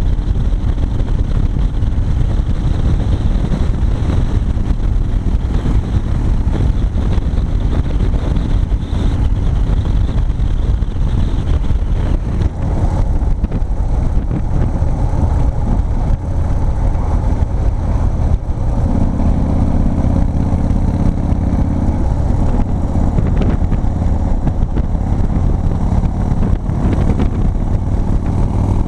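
Big Dog K9 chopper's V-twin engine running steadily at road speed, heard from the rider's seat with wind noise over it.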